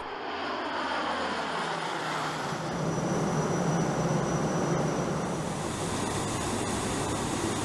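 Steady drone of a C-130 Hercules's four turboprop engines and propellers in flight, with a pitch that sinks over the first couple of seconds as the aircraft passes.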